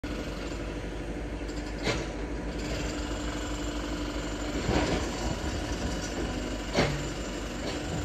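Construction-site sounds: a steady engine hum with a few sharp knocks, about four, the loudest near the end.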